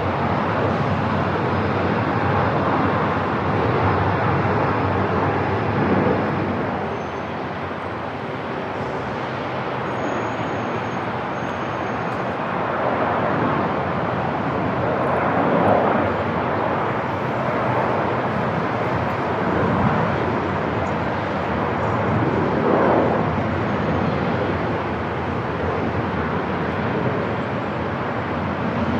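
Airport ambience: a steady wash of low jet-engine noise that swells and eases gently a few times.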